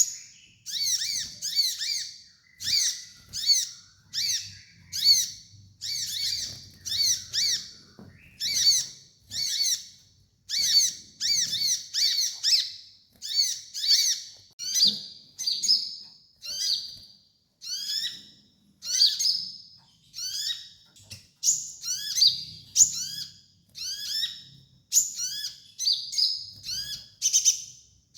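Kolibri ninja sunbird calling: short phrases of sharp, high chirps, repeated about once a second without a break.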